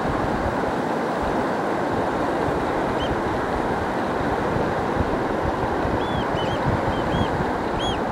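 Steady surf and wind noise on a shelly beach, with a few short, high, arched bird calls about three seconds in and a quick series of them near the end.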